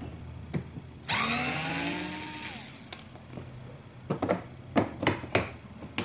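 Electric screwdriver whirring for about a second and a half, its pitch falling, as it backs a screw out of the washing machine's plastic rear panel. A few seconds later come a quick series of sharp plastic clicks and knocks as the panel is pried loose.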